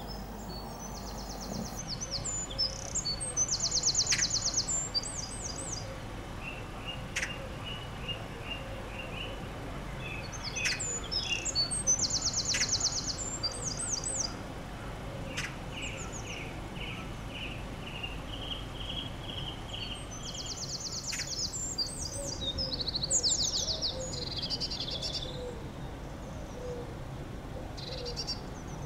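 Songbirds singing: fast, high trilled phrases in three bouts about ten seconds apart, with shorter runs of whistled notes in between, over a steady low rumble.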